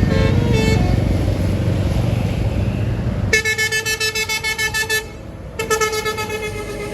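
Bus telolet horn of the basuri type playing a fast, warbling multi-note tune in two bursts of about a second and a half each, with a short gap between them. For the first few seconds before it there is a low engine rumble.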